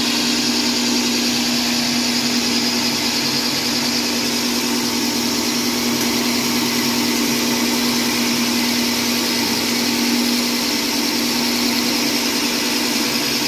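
Passi PLM-003 electric cylinder lawn mower running as it is pushed through grass, its motor giving a steady, unchanging hum with a hiss above it while the reel cuts.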